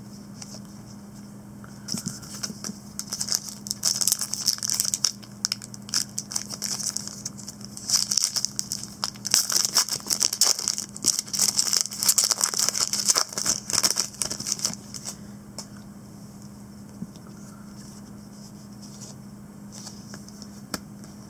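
Foil wrapper of a trading-card pack crinkling and tearing as it is opened, a run of crackly rustles from about two seconds in until about fifteen seconds in, then only light card handling.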